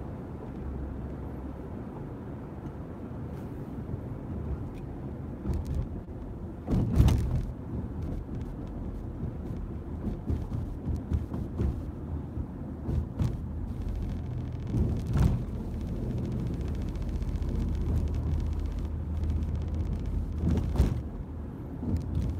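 Road noise and engine drone heard from inside a moving car's cabin at highway speed. A few short knocks and bumps cut through it, the loudest about seven seconds in.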